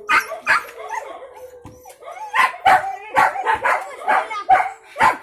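Hunting dog barking repeatedly in short, sharp barks, about two to three a second, coming faster and more regularly from about two seconds in.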